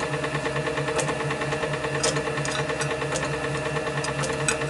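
A steady mechanical hum from a running machine, with a few light metallic clicks as a piece of sheet steel is set against the jaws of a lathe's four-jaw chuck.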